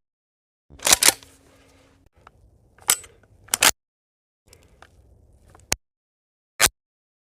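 Sharp metallic clacks of a shotgun's action being worked, several separate strikes with dead silence cutting in between.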